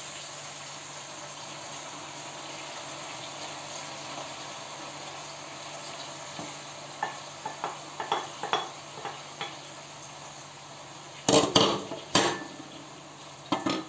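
A pot of okra with meat, chickpeas, tomato and garlic sizzling on a gas hob with a steady hiss. From about seven seconds in a wooden spoon clicks against the pot a few times, then a plate and pot lid clatter loudly on the worktop near the end.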